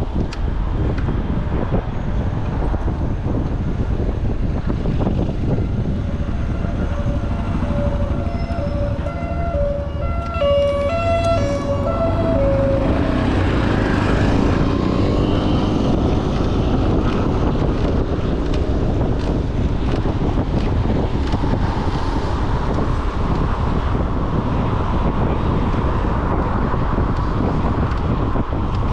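Emergency vehicle siren stepping rapidly back and forth between two pitches, starting about six seconds in and fading after about thirteen seconds, over constant road traffic and wind rushing on the microphone.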